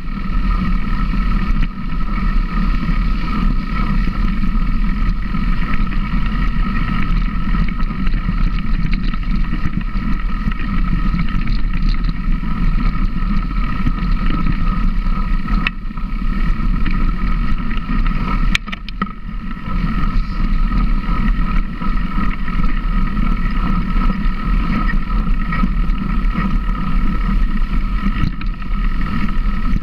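A motor running steadily at an even speed, with wind rumbling on the microphone.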